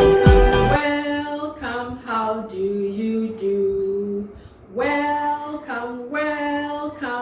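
Electronic intro music with a thumping beat that cuts off under a second in, then a woman singing a simple children's song unaccompanied, in short phrases of held notes with a brief pause midway.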